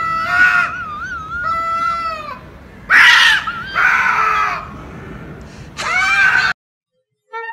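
Two domestic cats yowling and screeching at each other in a fight standoff: long, wavering yowls in several bouts, with the loudest screech about three seconds in. The yowling cuts off suddenly near the end.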